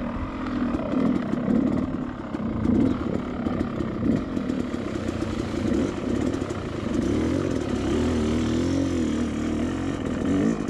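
Two-stroke dirt bike engine running while ridden, its pitch wavering up and down with the throttle.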